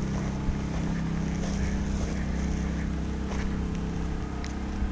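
Small portable inverter generators running with a steady engine hum; the hum's tone shifts slightly near the end.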